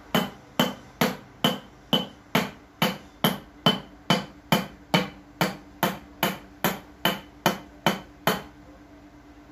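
A Type-C phone charger struck over and over with a hand-held wooden tool against a tiled floor: about twenty even, sharp blows, a little over two a second, each with a short ring. The blows stop shortly before the end.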